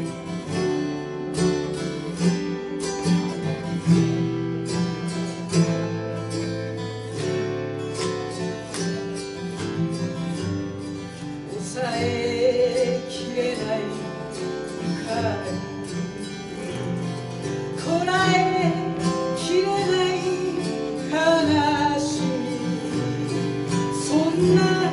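Acoustic guitar and autoharp playing chords together. About halfway through, a woman's voice comes in and sings a melody over them.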